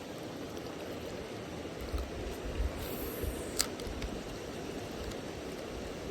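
Steady rush of river water, with low wind buffeting on the microphone and one sharp click about three and a half seconds in.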